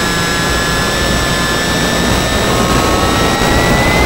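Ultra Micro Icon A5 RC plane's small electric motor and propeller whining steadily in flight, heard close up through the onboard camera with air rushing past; the whine rises slightly in pitch near the end.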